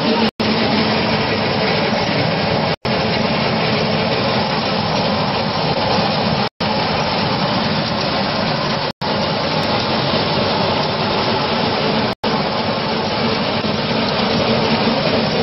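Grain peeling and milling machine running on maize: a loud, steady mechanical noise of the mill and the grain passing through it, over a low motor hum. It drops out completely for a split second about five times.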